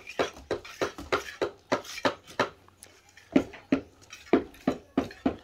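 Repeated hard knocks, about three a second, with a short pause midway: steady striking blows, like a tool hitting a hard surface.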